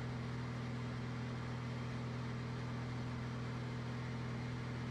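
Steady drone of a single-engine piston airplane's engine and propeller in cruise, heard in the cockpit: a low, even hum with several steady tones.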